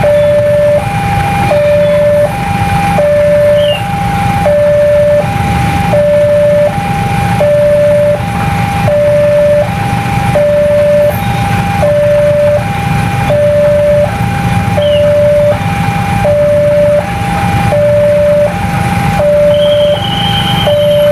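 Railway level-crossing warning alarm sounding its two-tone signal, a higher and a lower note alternating about every three-quarters of a second, the signal that a train is approaching and the barrier is down. Engines rumble steadily underneath, and a brief high whistle sounds near the end.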